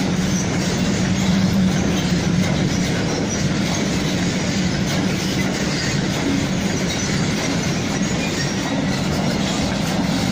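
Freight train of sliding-wall boxcars rolling past at steady speed: a continuous rumble of steel wheels running on the rails.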